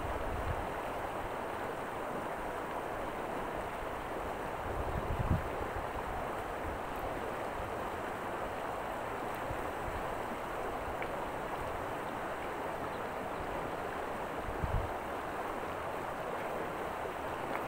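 Steady rush of river water flowing past a stony bank, with two brief low buffets of wind on the microphone.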